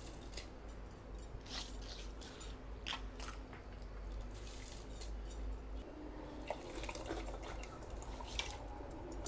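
Handfuls of rice dropped into boiling liquid in an aluminium pressure cooker, making small irregular splashes and clicks. Near the end, water is poured in from a tumbler.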